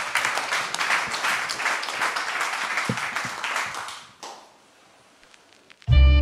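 Audience applause, dying away after about four seconds into near quiet. Just before the end, loud music with strong bass starts up.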